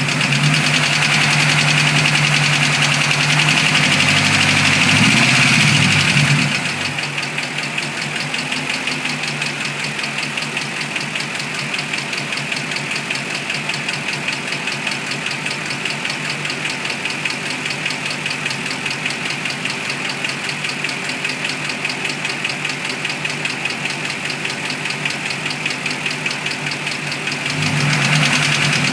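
2006 Mustang GT's 4.6-litre V8 running with a fast, even tapping from under the cam cover. It runs faster for about the first six seconds, settles back to idle, and picks up again near the end. The tick comes from a bad camshaft roller follower whose tip bearing failed and wore a passenger-side cam lobe almost round.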